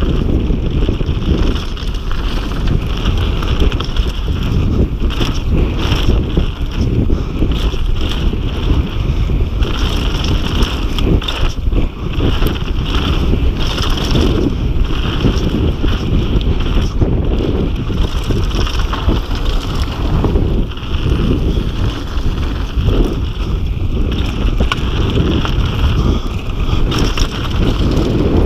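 Downhill mountain bike ridden fast over a dirt trail: wind rushing over the microphone, tyres on dirt, and many short knocks and rattles from the bike over bumps.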